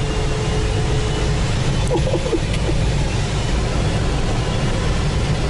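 Steady rush of airflow around a glider in soaring flight, heard from inside the cockpit as a low, even wind noise.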